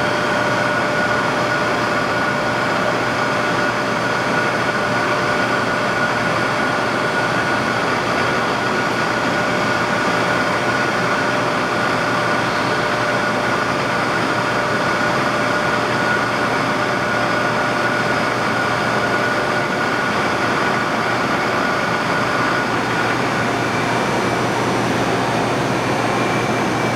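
Lagun FU-3-LA horizontal milling machine running under power: a steady motor and drive hum with constant high whining tones. The highest whine fades out near the end.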